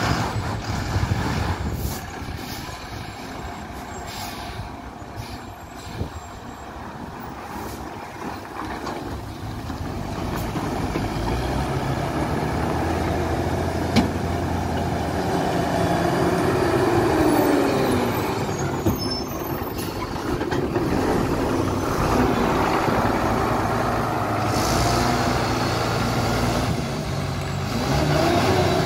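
Diesel engines of heavily loaded lorries running slowly round a hairpin bend, one after another, their engine note swinging in pitch a little past halfway. There is a single sharp click about halfway through.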